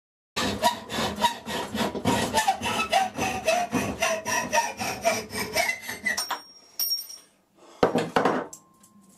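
Hacksaw cutting aluminium angle clamped in a bench vise: a fast, even run of back-and-forth strokes that starts abruptly and goes on for about six seconds. It is followed by a brief high metallic ringing and a short clatter near the end.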